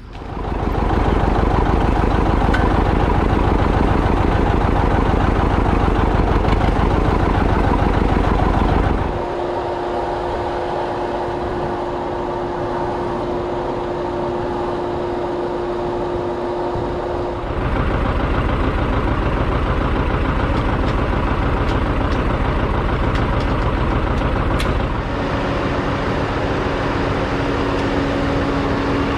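Farm tractor engine running steadily, the sound changing abruptly three times along the way, with a steady hum or whine in some stretches.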